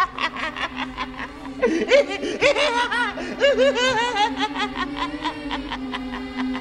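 A man laughing wildly in rapid, pitched bursts, over a steady low drone.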